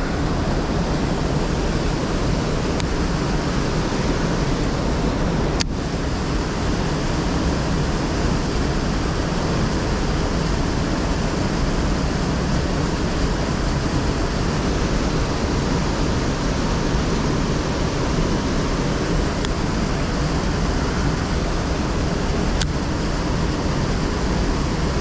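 Steady rush of a fast-flowing river current, an even noise without change, with a sharp click about six seconds in and another near the end.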